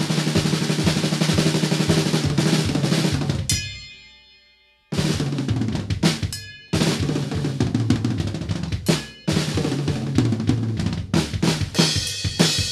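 Acoustic drum kit played in fast fills on snare, toms and kick, with cymbal crashes. The playing breaks off about three and a half seconds in, leaving a cymbal ringing out for about a second. It starts again, stops briefly twice more, and a bright cymbal wash builds near the end.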